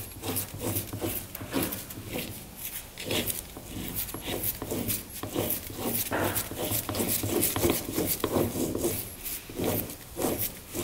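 Irregular rubbing, scraping and light clicks of metal parts handled by hand on a workbench, over a low steady hum.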